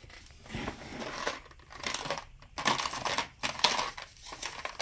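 Handling noise: irregular rustling and light clicks as a small multi-pin electrical connector and its parts are picked up and turned over by hand.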